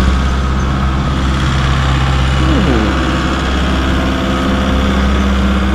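Tractor engine running steadily at idle, a constant low hum.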